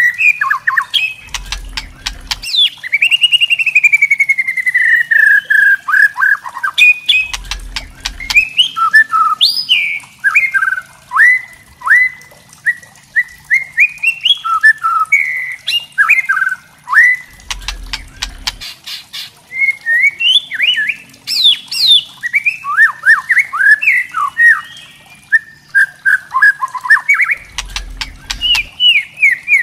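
White-rumped shama (murai batu) singing a continuous, varied song of loud whistled phrases, rising and falling slurs broken by bursts of rapid clicking chatter (kretekan).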